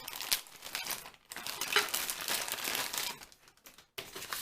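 Packaging crinkling as toy kitchen pieces are unwrapped and handled, in irregular spells with short pauses.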